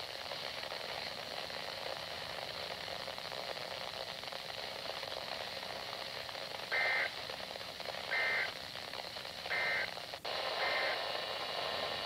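Static hiss from a weak NOAA Weather Radio signal on a handheld weather receiver, then, about seven seconds in, short two-tone data bursts of the EAS SAME header repeating about every second and a half, the last one fainter: the start of a Required Weekly Test. A click comes just after the third burst.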